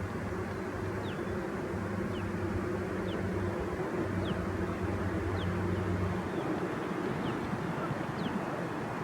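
Short, high bird calls, each falling in pitch, repeating about once a second over a steady low drone; the drone stops about six seconds in.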